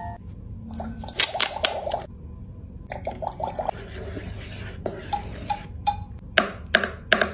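A plastic wand stirring liquid in a plastic toy cauldron, clicking and tapping against its sides in quick runs, with several sharper knocks near the end.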